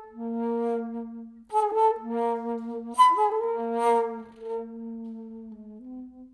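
Flute playing long, held low notes in a slow phrase, with breathy accented attacks about a second and a half in and again at three seconds, and a short, slightly higher note at the end.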